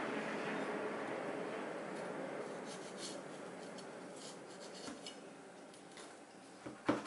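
Chef's knife sawing through a burnt, crumbly brownie crust on a wooden chopping board: soft scraping and crumbling with a few small clicks, then a sharp knock near the end. A steady background noise fades out over the first few seconds.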